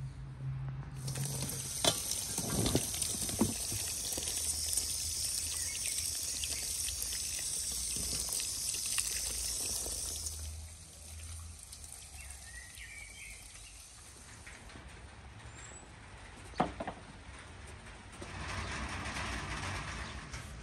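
Water from a garden standpipe tap running into a stainless steel colander of vegetables as they are rinsed, with vegetables knocking against the bowl; the water stops abruptly about halfway through. Near the end, a vegetable peeler scraping a carrot.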